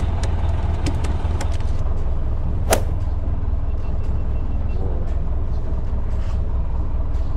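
Boat engine idling with a steady low hum. A single sharp knock comes about three seconds in, and there are a few faint ticks.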